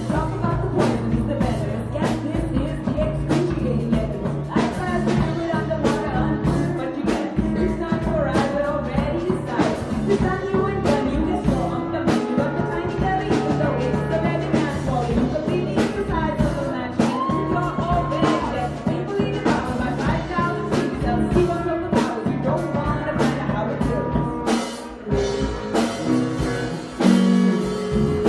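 Live rock band playing: electric bass, guitar and drum kit keeping a steady beat, with a woman singing over it. The drums drop back briefly near the end before the band comes back in.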